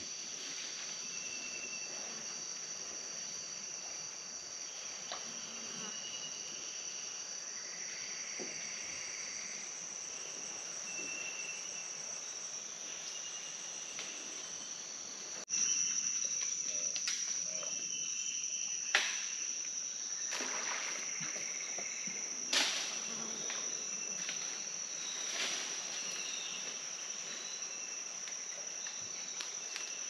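Rainforest insects buzzing in a steady, high-pitched drone. About halfway through it suddenly gets louder, and a few brief sharp sounds stand out over it.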